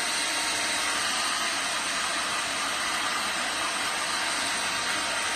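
Electric heat gun blowing steadily, a constant rushing hiss of fan and hot air, while it shrinks heat-shrink tubing onto the cable.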